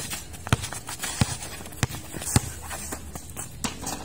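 Basketball dribbled on a concrete court: four sharp bounces about two-thirds of a second apart, with sneakers scuffing and stepping between them, and the bouncing stops in the last second or so.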